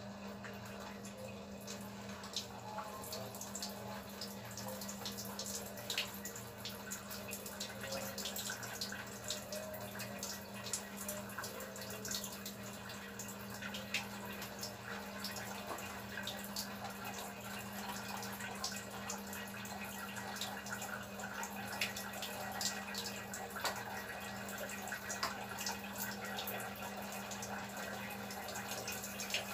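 Water running from a tap, dripping and splashing with scattered sharp drops, over a steady low hum.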